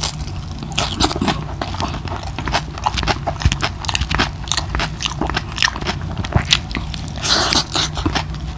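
Close-up eating sounds: a person chewing with frequent crisp, irregular crunches and wet mouth clicks.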